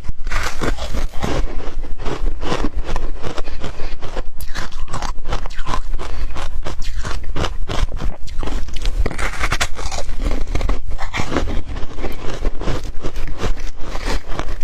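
Close-miked ice being bitten and chewed: a fast, unbroken run of crunches and crackles.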